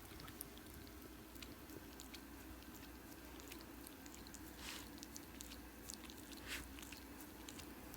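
Faint wet clicking of dogs licking and nibbling at fur while grooming, with two short louder slurps about four and a half and six and a half seconds in, over a steady low room hum.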